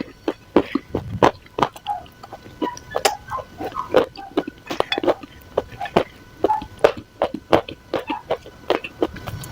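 Dry clay crumbs crunching close to the microphone: rapid, irregular crisp cracks, several a second.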